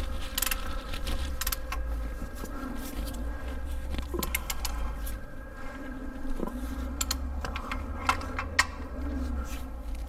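Scattered light metallic clicks and clinks of a bolt, socket and pulley being handled by gloved hands while a replacement idler pulley is fitted to a belt tensioner, over a low steady hum.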